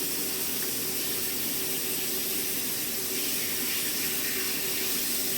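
Water running steadily from a sink faucet.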